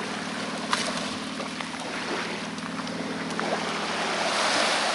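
Small waves lapping and washing onto a beach, with a wash swelling louder near the end. A steady low hum sits underneath for the first three seconds or so, with a couple of faint ticks.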